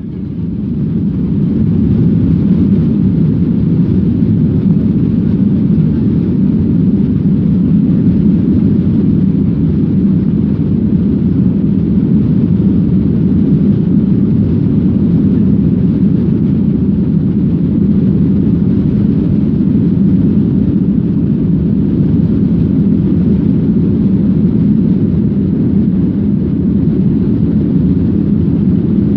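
Airliner cabin noise in flight: a steady, deep rumble of engine and air noise that fades in over the first couple of seconds and then holds even.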